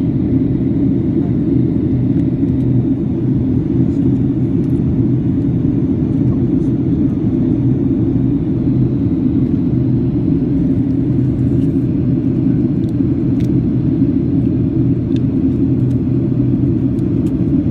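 Steady cabin noise inside a Boeing 737 airliner on its approach: engine and airflow noise through the fuselage, a loud, even, low rumble.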